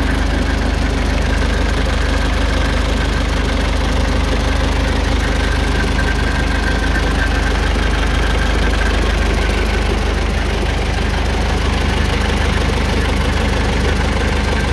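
Diesel engine of a Rodex 77W wheeled excavator idling steadily, heard close up with the engine cover open.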